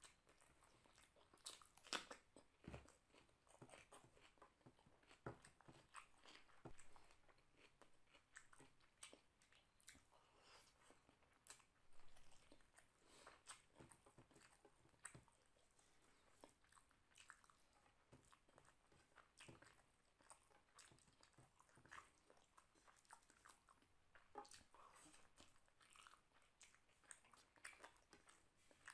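Faint close-miked chewing and mouth sounds of a person eating vegetable masala rice by hand: many short wet clicks and lip smacks, irregularly spaced.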